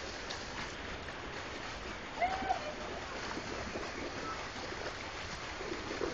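Fountain jet bubbling up and splashing steadily into its pool. About two seconds in, a brief high call cuts across it.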